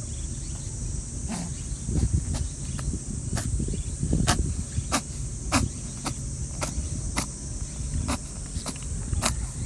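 A rabbit sneezing over and over: a string of short, sharp sneezes, about one every half second to second, starting about a second in. A steady high insect chirring runs underneath.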